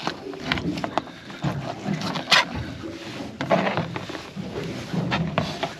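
Knife slicing the fillet off a mackerel on a plastic cutting board, with irregular scrapes, clicks and knocks of blade, fish and board. A sharp scrape about two and a half seconds in is the loudest sound, over a low background rumble.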